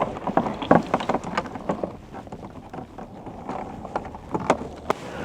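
Handling noise of a power cable being fed out through a tractor cab window: irregular clicks, taps and rustling.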